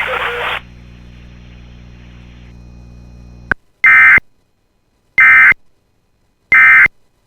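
Emergency Alert System SAME data tones: three short, loud, identical bursts of digital squawking about 1.3 seconds apart, starting about four seconds in after a faint hum and a click. Coming right after the broadcast's closing words, these are the end-of-message code that closes the alert.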